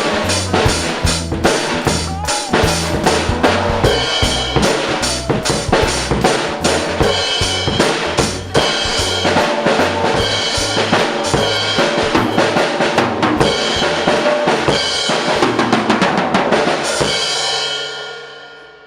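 Drum kit played along to a backing track of a pop-reggae song: kick drum, snare and rimshots over the recording's bass and guitar. The music fades out near the end.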